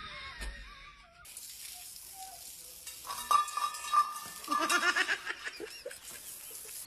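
A steady hiss, with a run of short pitched animal calls from a dog and rooster encounter about three to five seconds in.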